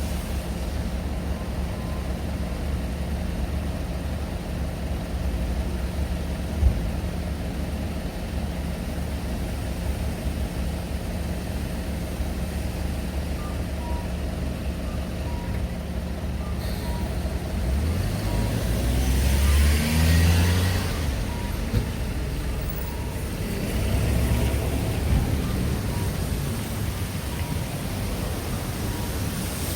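Road traffic at a crossroads over a steady low rumble. A car passes and pulls away about two-thirds of the way in, its engine note rising, and another vehicle passes shortly after.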